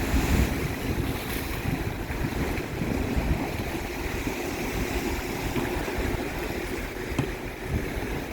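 Storm wind gusting on a phone's microphone over rough, choppy sea, with waves sloshing continuously.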